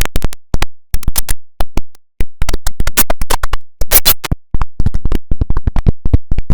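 Rapid, irregular stutter of very short, loud clipped sound fragments, like a glitched, chopped-up audio edit, with a few brief gaps.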